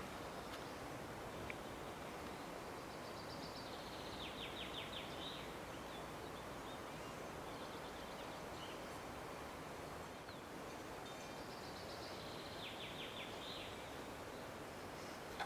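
A songbird singing a short phrase of rapid repeated notes, twice, with a weaker call in between, over a steady faint background hiss.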